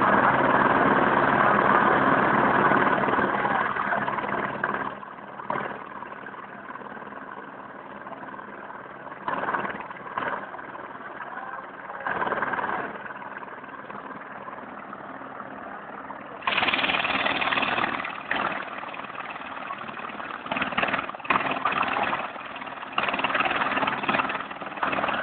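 Squirrel helicopter's turbine engine and rotor running for take-off. It is loudest in the first few seconds, then quieter, with louder stretches coming and going every few seconds.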